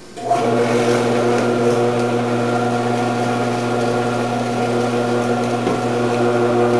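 Omcan HLC 300 vegetable prep machine's electric motor switching on and running with a steady hum, its shredding disc spinning.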